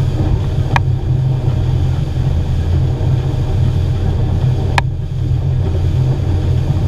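Outboard motor running steadily at speed under load while towing, with water rushing in the wake. Two brief clicks, about four seconds apart.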